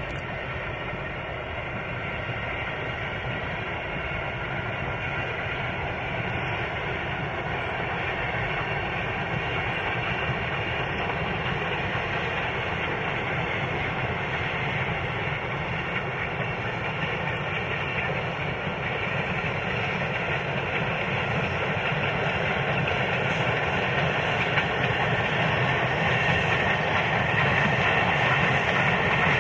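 Narrow-gauge train running, a steady rumble that grows gradually louder as it draws nearer.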